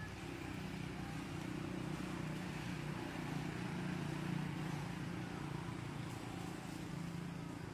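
A motor engine running steadily, a low hum that gets a little louder around the middle and then eases off.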